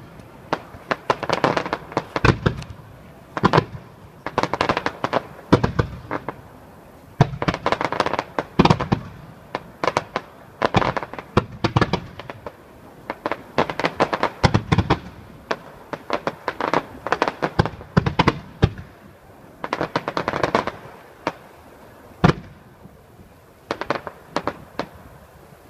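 Aerial fireworks display: a dense run of sharp bangs and bursts in irregular clusters, thinning out over the last few seconds.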